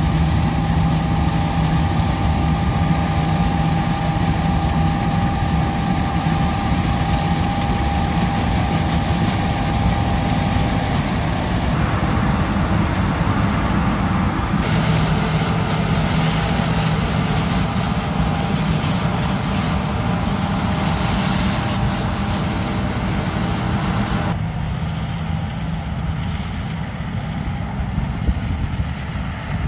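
Combine harvester running steadily, a continuous engine drone with a held tone in it. The sound changes abruptly three times, about 12, 15 and 24 seconds in.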